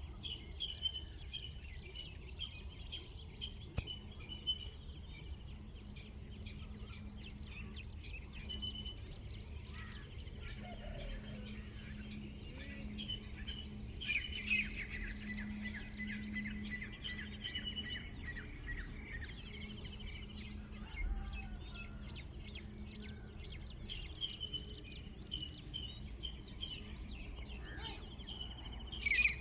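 Birds chirping and calling, with a busier run of chirps about halfway through, over a steady high-pitched insect drone and a faint low hum.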